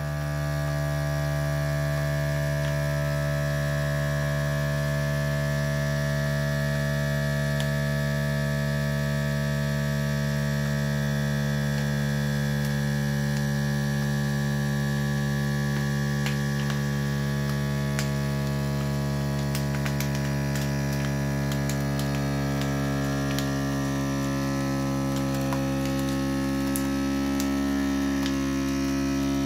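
Countertop vacuum sealer's pump running steadily, drawing the air out of a plastic bag packed around a filament spool. Light crackles of the bag's plastic come in over the second half as the bag pulls tight. The pump's tone changes slightly near the end.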